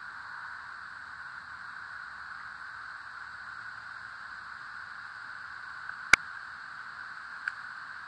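Steady hiss, with a sharp click about six seconds in and a fainter click about a second later.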